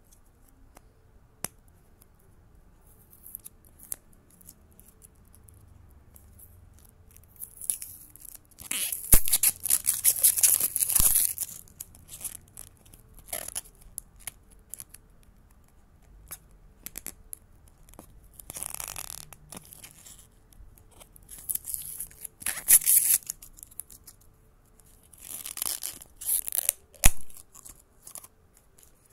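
Printed plastic shrink-wrap sleeve being torn and peeled off a plastic toy capsule: several bursts of crinkly tearing, the longest about 8 to 12 seconds in, with single sharp plastic clicks and quiet handling between.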